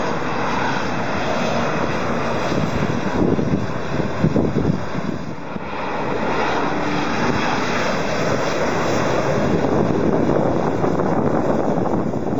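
Turbofan engines of Embraer regional jets on final approach with gear down: a steady, loud jet engine noise. It dips briefly a little past five seconds in, where one jet gives way to the next.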